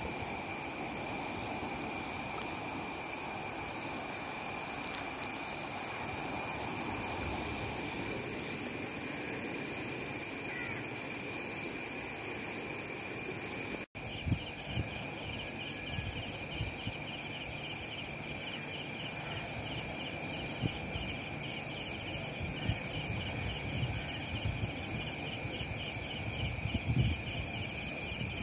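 Steady rush of a fast-flowing, swollen river under constant high-pitched insect trills. After a brief break about halfway through, a rapidly pulsing insect call joins in.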